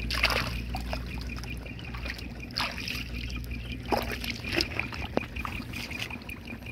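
Shallow muddy paddy water splashing and sloshing around a wader's hands and legs, with a few separate sharper splashes and a sharp click or knock, as a crab is caught and dropped into a plastic bucket. A faint high pulsing tone runs underneath.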